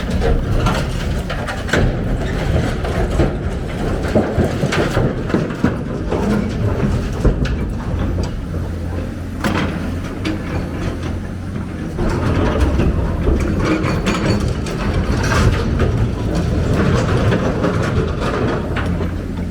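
Heavy diesel construction machine running, with a steady low engine drone that grows louder about two-thirds of the way through, and irregular metallic clanks and knocks throughout.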